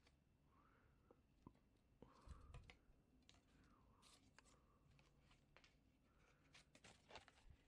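Near silence with faint scattered clicks and rustles of hands handling the cleaning wire pulled out of a Coleman 508A stove's generator, a little busier twice.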